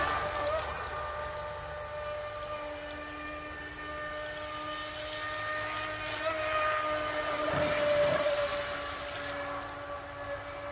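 Atomic 27.5-inch RC catamaran's brushless motor whining as the boat runs on the water. It is a steady high whine with overtones that grows louder about eight seconds in and then fades again.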